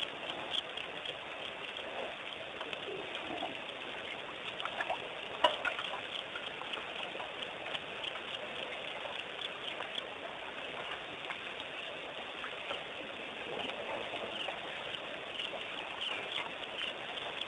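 Waterhole ambience after dark: a steady chorus of many short, high chirps with scattered lower calls, and one sharp click about five seconds in.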